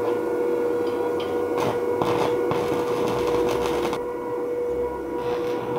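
Inverter stick welder (Suzukid iMAX60) arc welding steel tubing with a 2 mm rod: a steady crackling hiss over a constant high hum.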